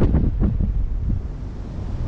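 Wind buffeting the microphone over the wash of open-sea waves. The gusts are strongest at the start and ease after about half a second.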